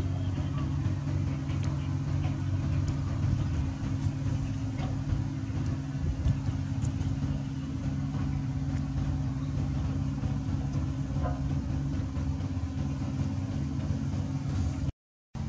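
Steady low hum of a running engine.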